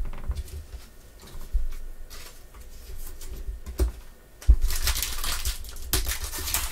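Light rustles and taps of trading cards being handled, then a thump about four and a half seconds in, followed by the crinkling and tearing of a card pack's plastic wrapper as it is ripped open.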